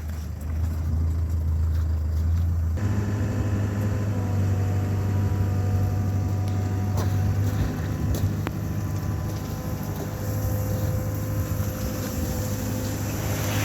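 Cat 308 mini excavator's diesel engine running with a steady drone. About three seconds in, the engine note steps up and a steady hydraulic whine joins it as the machine works. There are a couple of light clicks near the middle.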